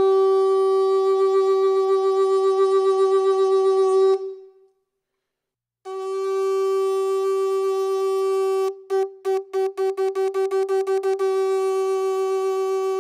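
Mapuche horn sounding one long steady note that stops about four seconds in. After a short pause the same note starts again, breaks into a quick run of stuttering pulses for a couple of seconds, then holds steady.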